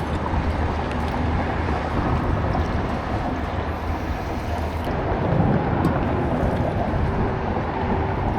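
Steady low rumble with a hiss of wind and water around a boat on open water, with no distinct events.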